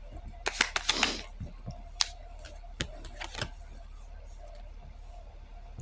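A few sharp clicks and taps from objects being handled: a quick cluster about a second in, then single clicks spread over the next few seconds, over a faint steady hum.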